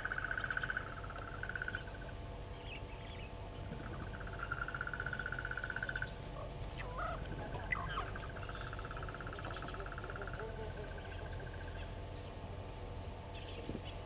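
A high, rapidly pulsing trill from a calling animal, starting and stopping in runs of one to three seconds. A few short bird chirps come about seven seconds in.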